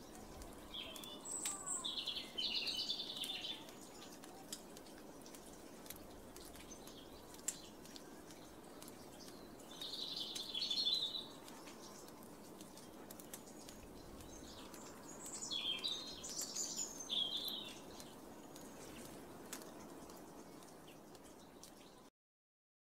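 Small songbirds chirping and twittering in three short bouts, about a second, ten seconds and fifteen seconds in, over a faint steady outdoor background. All sound cuts off abruptly near the end.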